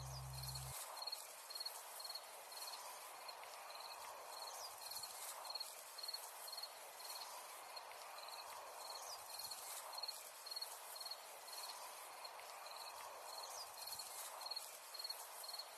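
Night insect chorus: a cricket's short chirp repeating steadily about three times every two seconds over a faint steady hiss of other insects, with a few brief rising calls now and then.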